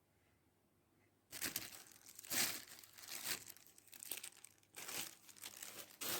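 Near silence for about a second, then plastic packaging crinkling and rustling in irregular bursts as it is handled.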